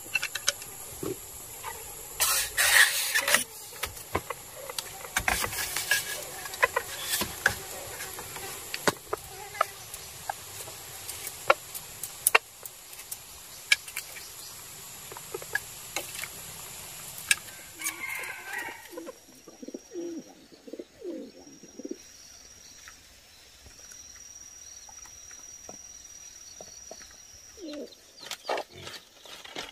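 Jungle chickens clucking and a rooster crowing, among many sharp clicks and taps.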